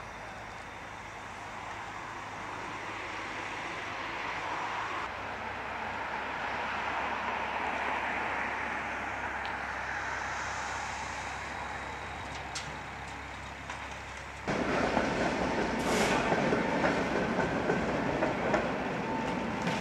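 Steady city street noise at first. About three-quarters through it turns louder as a Tatra T3 tram runs past on its rails, with a faint steady wheel squeal and one sharp clank.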